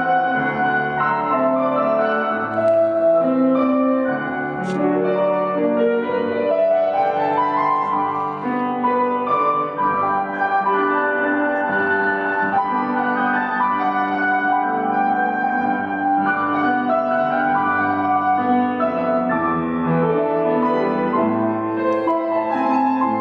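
Grand piano playing a melodic piece, with many notes held.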